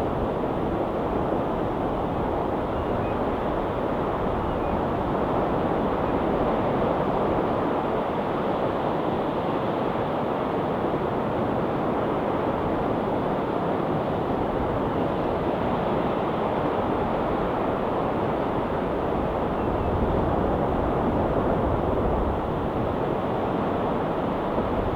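Ocean waves washing steadily onto a rocky shore, a continuous rushing surf with gentle rises and falls.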